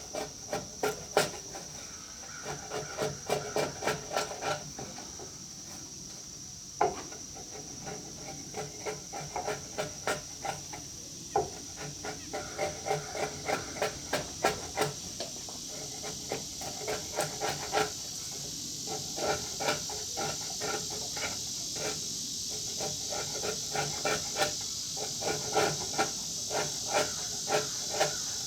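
A 2-inch flat chisel paring saw marks off the face of a pine beam: quick repeated scraping strokes, about three or four a second, in runs with short pauses between.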